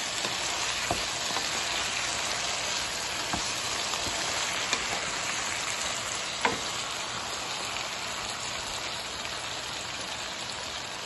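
Snails and sliced bell peppers in an oily pepper sauce frying in a pan: a steady sizzle with a few sharp pops of spitting oil, the loudest about six and a half seconds in.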